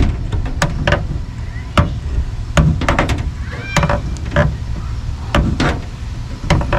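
Irregular clicks and knocks, roughly one every half second to a second, as the handle on an RV gray tank valve's pull rod is twisted to unscrew it. A steady low rumble runs underneath.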